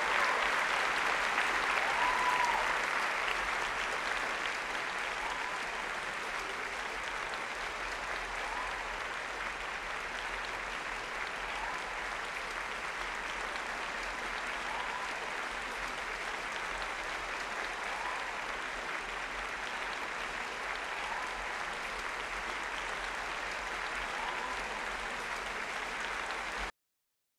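Applause for the Best in Show winner, loudest in the first few seconds, then settling into steady clapping that cuts off suddenly near the end.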